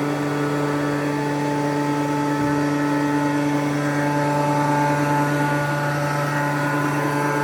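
Hydrovane 504 rotary vane air compressor, driven directly by its 4 kW three-phase motor, running steadily with a constant pitched hum.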